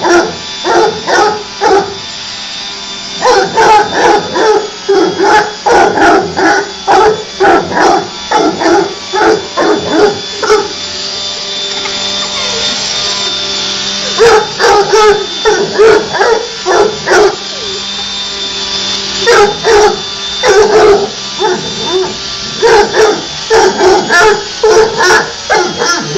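Young bloodhound barking and yipping in rapid runs of a few barks a second at a vacuum cleaner's power head, with a couple of short breaks. Under the barking runs the vacuum cleaner's steady hiss and high whine.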